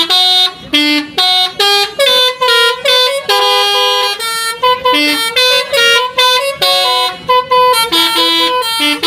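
Basuri telolet bus horns playing a fast tune of short stepped notes, with several tones sounding together at times.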